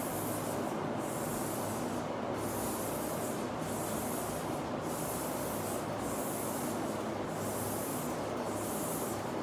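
Chalk rubbing back and forth across a blackboard as an area is shaded in: a scratchy hiss that swells with each stroke, about three strokes every two seconds.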